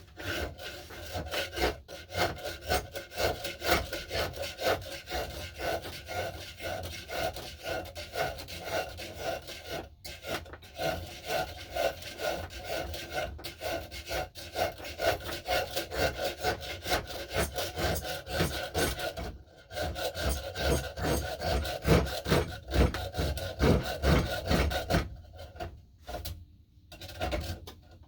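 A hand tool worked in quick back-and-forth strokes on the wooden knob of an axe handle, shaping it, with short pauses now and then.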